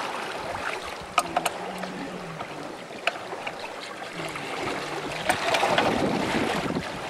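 Wind buffeting the microphone over the rush of the sea at a sailboat's stern, swelling louder about five seconds in, with a few sharp clicks from work on the steering-gear fittings.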